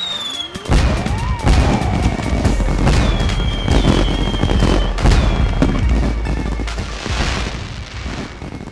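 A rapid barrage of firework bangs and crackles over a deep rumble, with whistling tones gliding in pitch, mixed with music; it fades out near the end.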